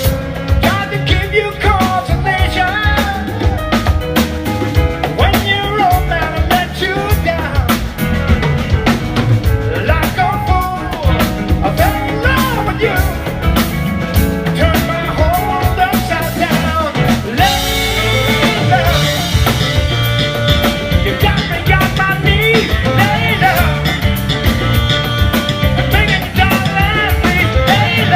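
Live band playing an upbeat song: a drum kit and bass keep a steady groove under a wavering melodic lead line. About 17 seconds in, the cymbals and the high end get brighter and fuller.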